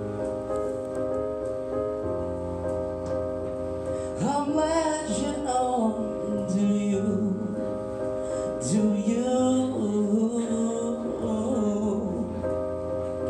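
Piano playing sustained chords. A singer's wordless vocal runs come in about four seconds in and fade out near the end.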